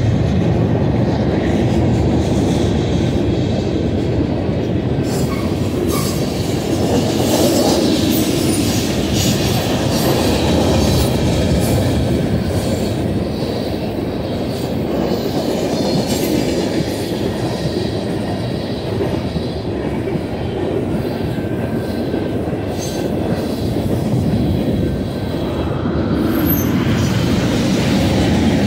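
Cars of a BNSF manifest freight train rolling past on the mainline: a steady rumble and clatter of steel wheels on rail that rises and falls slightly as the cars go by.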